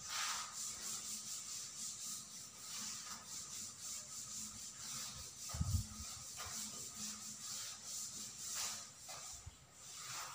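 Cloth duster wiping chalk off a blackboard: a run of quick back-and-forth rubbing strokes, with a single low thump about halfway through.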